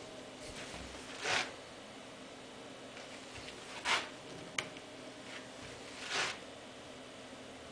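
Nikon D80 DSLR shutter and mirror firing three times, each release a short, rasping burst, spaced about two and a half seconds apart. A single sharp click falls between the second and third releases.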